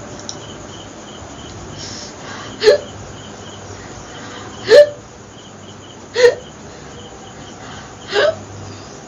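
A woman hiccuping four times, each hiccup a short, sharp squeak with a quick upward jerk in pitch, about one and a half to two seconds apart.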